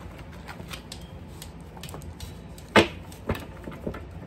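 A stack of paper index cards being flipped through and handled by hand: scattered light taps and clicks, with a louder knock a little under three seconds in and another about half a second later.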